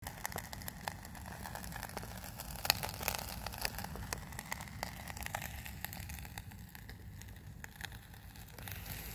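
Campingaz cartridge camping stove burning under a stainless steel mug of pasta in boiling water: a steady hiss with many small pops and crackles.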